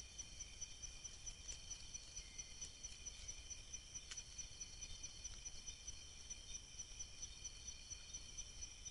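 Night insects, crickets, trilling in a steady chorus at several pitches, over a low background hiss, with one faint click about four seconds in.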